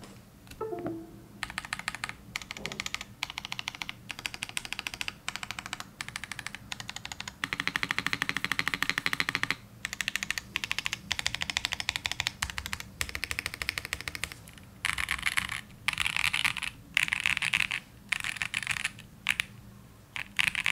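Typing on an ai03 Vega gasket-mounted mechanical keyboard with lubed and filmed Gazzew Boba U4t tactile switches, a full aluminium plate and CRP R4 keycaps. The keystrokes come in quick runs with short pauses, the runs loudest in the last few seconds.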